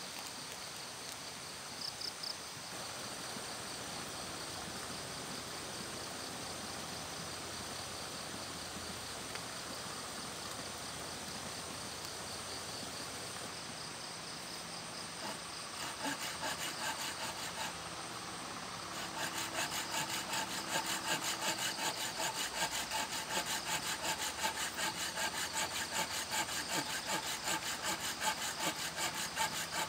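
Insects chirring steadily. About halfway through, a hand saw starts cutting into a wooden log with quick, even back-and-forth strokes, which grow louder and keep going.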